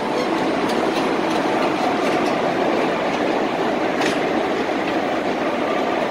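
Passenger train coaches rolling slowly along the platform, a steady rumble with the wheels clicking over rail joints now and then and one sharper click about four seconds in.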